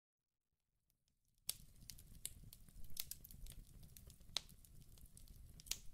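Near silence: dead silent for about a second and a half, then faint room tone with scattered small clicks.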